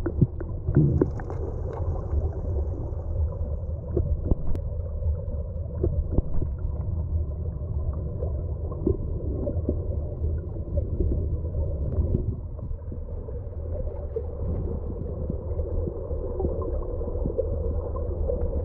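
Underwater sound of a river pool: a steady, muffled low rumble of flowing water, with scattered small clicks and knocks.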